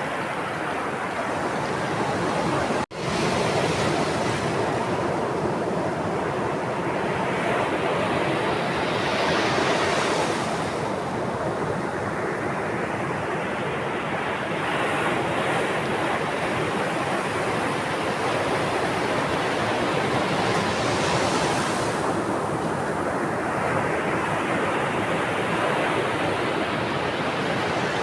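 Sea waves washing on the shore in a steady rush, swelling as a wave breaks roughly every five or six seconds. The sound drops out for a split second about three seconds in.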